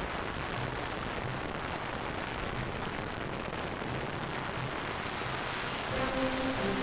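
Steady, even rushing noise, with held music notes coming in near the end.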